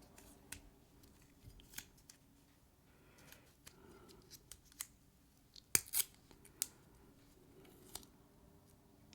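Scissors snipping and tape being handled: a scattering of light clicks and snips, the loudest pair close together about six seconds in.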